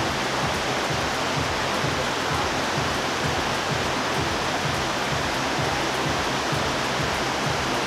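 Heavy rain falling steadily outside, a constant even hiss.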